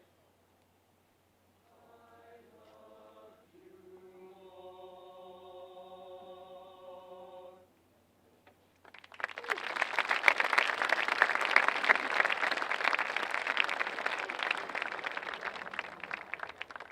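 A choir of voices sings a short phrase that ends on a long held chord. After a brief pause a crowd breaks into loud applause lasting several seconds.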